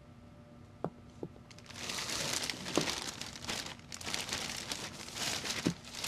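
Cloth and paper rustling and crinkling as a bundle is handled and unfolded, starting about two seconds in and going on in a dense, crackly stream.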